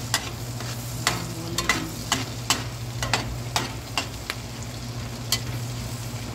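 Butter sizzling in a wok with garlic and onions while a metal spatula stirs, its edge clicking and scraping against the pan again and again at an uneven pace. A steady low hum runs underneath.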